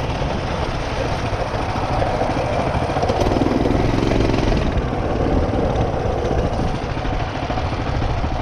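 Mini bike's small single-cylinder four-stroke engine running steadily while it is ridden, with its fast low exhaust pulse.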